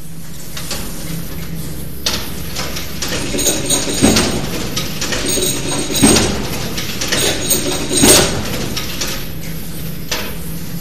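Mechanism of the Corpus Clock, a large gold-disc clock with a grasshopper escapement on top, knocking about every two seconds, strongest in the middle, over a steady low hum.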